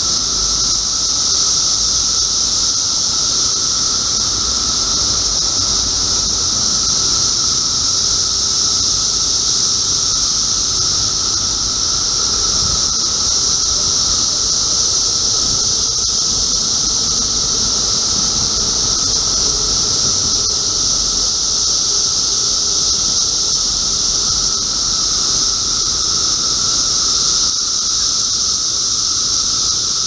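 Chorus of Brood X periodical cicadas: a loud, steady, high-pitched drone with a fainter, lower steady tone beneath it.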